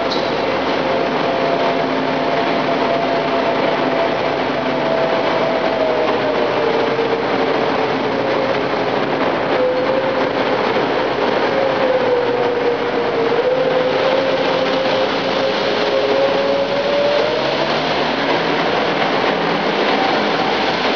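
Gehl machine with a bucket sweeper attachment running under load: a steady engine-driven whine over a constant hiss. The whine sags in pitch around the middle and climbs back near the end.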